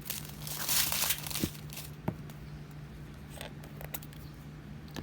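Crinkling of a small plastic baggie of diamond painting drills being handled, for about a second and a half near the start, followed by a few light clicks.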